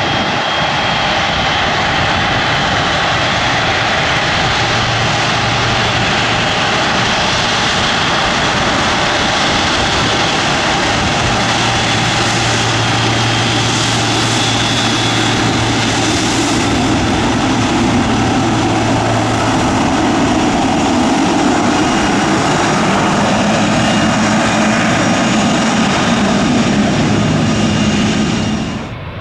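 Jet airliner engines running loud and steady: a broad roar with a thin whine held on top and a low hum that swells in the middle. The sound cuts off abruptly at the very end.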